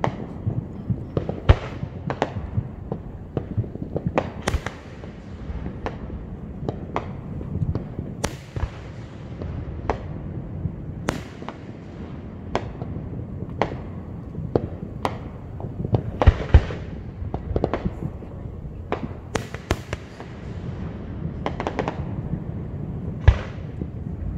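Aerial fireworks display: shells bursting in an irregular run of sharp bangs and cracks, some in quick clusters, over a continuous low rumble. The loudest bangs come about a second and a half in, around the middle, and near the end.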